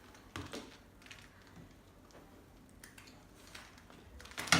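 A handbag being handled: scattered soft clicks and taps from its hardware and straps, with a sharper click near the end.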